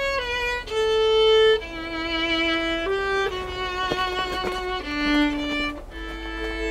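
Solo violin playing a slow melody of held notes, one after another.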